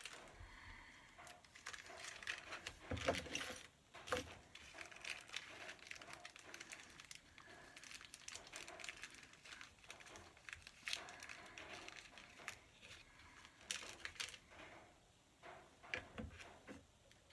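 Faint handling sounds of 3D printer kit assembly: scattered clicks and taps of small parts and hardware with rustling, irregular throughout.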